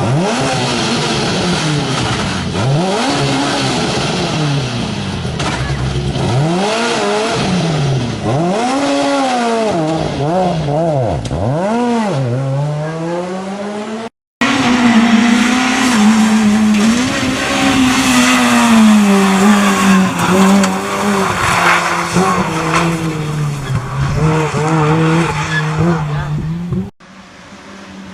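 Rally car engines at full attack. In the first part the engine revs rise and fall sharply through gear changes. After a sudden cut about halfway, a car runs hard at a steadier pitch with tyre squeal and skidding noise.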